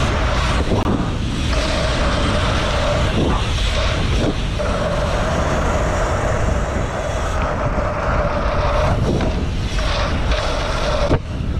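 Wind rushing over an action camera's microphone as a BMX bike rolls fast down a race track, with tyre noise from the track surface and a steady hum through much of it. A few short knocks come as the bike goes over the track's bumps.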